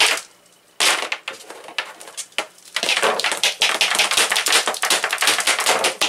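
Bundle of insulated #12 copper wires joined by a plastic wire nut, slapped and knocked against a table to try to shake the connection loose: a short burst of clattering hits about a second in, then a fast, dense run of knocks from about three seconds in.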